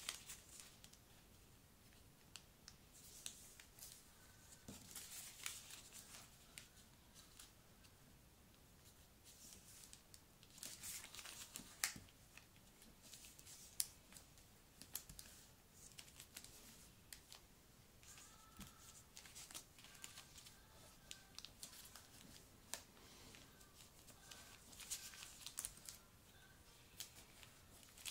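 Origami paper being folded by hand: faint, intermittent rustling and crinkling as the sheet is creased and handled, with a few sharper clicks.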